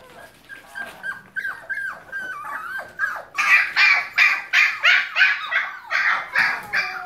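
Keeshond puppies whining in high, thin cries, then about three seconds in breaking into a fast run of loud, high-pitched yapping barks, about three a second.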